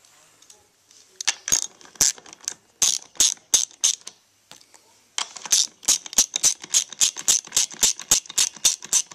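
Hand socket ratchet clicking as it runs a bolt into a seat's recliner bracket: a few scattered clicks at first, then from about five seconds in a steady run of about four clicks a second as the handle is swung back and forth.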